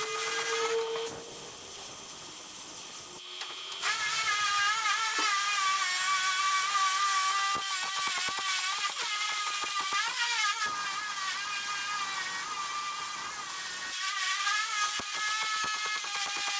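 MIG welder arc crackling and buzzing as a patch is welded into the sheet-metal lower quarter panel of a 1973 Plymouth Duster. It runs in welds with short stops, quieter from about one to four seconds in, then steadily with brief breaks.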